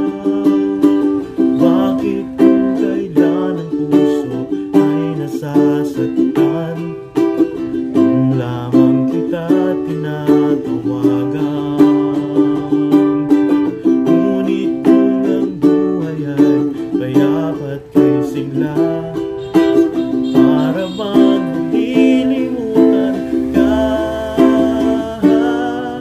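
All-Hawaiian-koa tenor ukulele strummed in chords, with a man singing along over it.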